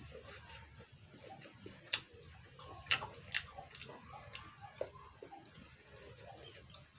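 Eating sounds: a person chewing rujak, with a string of sharp mouth clicks and smacks, the loudest about two to five seconds in.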